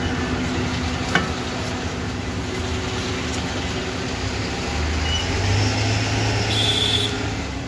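Chicken shawarma sizzling on a vertical rotisserie grill, over a steady low hum that swells near the end, with a single sharp metal click about a second in as tongs and ladle work the meat.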